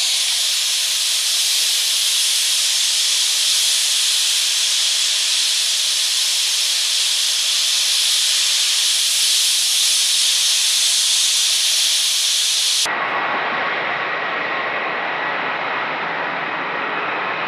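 Jet engines idling on the flight line: a steady, high-pitched hiss with a thin whine. About thirteen seconds in it cuts off abruptly to the fuller, lower jet noise of a C-17 Globemaster III's four turbofan engines as it taxis, with a steady whine over it.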